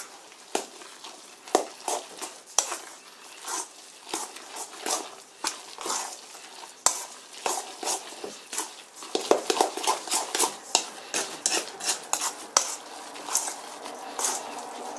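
A metal utensil stirring and scraping through a thick, wet wheat-gluten dough in a stainless steel bowl, with irregular clinks of metal on metal. The strokes grow louder and busier about nine seconds in as the mass stiffens, the gluten soaking up the liquid.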